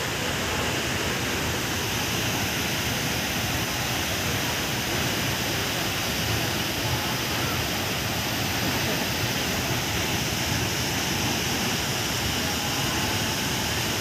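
Waterfall's falling water rushing steadily, an even, unbroken noise.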